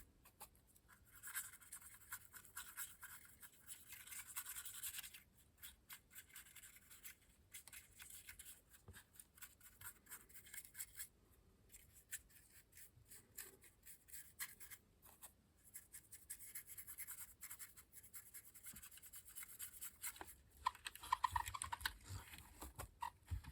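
Paintbrush bristles scrubbing a pigment-and-water weathering wash over a plastic OO gauge model locomotive body: faint, irregular scratchy brush strokes with short pauses between them.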